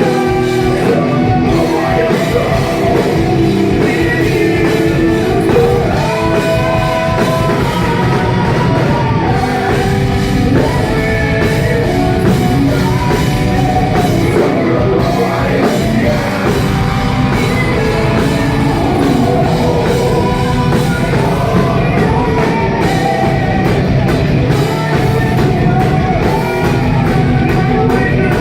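Live metal band playing loudly with singing, recorded on a phone that can't handle the volume, so the sound is harsh and distorted.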